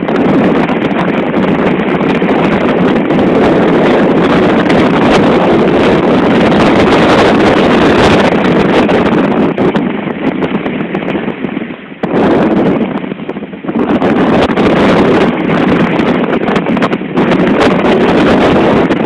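Strong storm wind buffeting the microphone on a ship's deck in heavy seas, mixed with the rush of breaking water along the hull. It eases for a moment or two about two-thirds of the way in, then picks up again.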